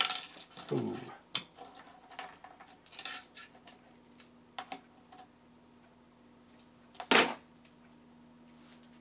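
Small 3D-printed PLA plastic parts clicking and clattering as a robot leg assembly is taken apart by hand, with one much louder sharp clack about seven seconds in.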